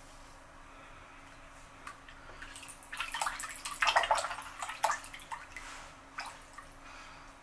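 Water splashing and dripping: a quick run of splashes starting about two and a half seconds in, loudest around four seconds, dying away by about six seconds.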